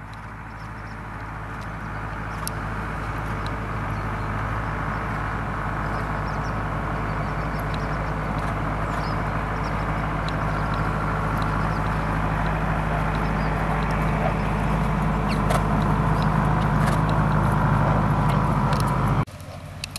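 A steady motor-like hum and rumble that slowly grows louder, then cuts off abruptly near the end.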